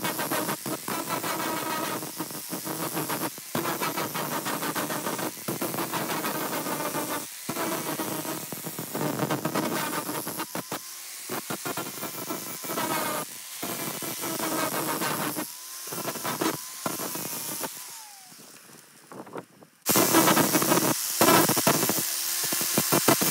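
Angle grinder with a 120-grit flap disc grinding a steel adjustable wrench: a motor whine under a steady grinding hiss, broken by many brief drops as the disc comes off the work. Near the end it winds down almost to quiet, then suddenly comes back at full speed.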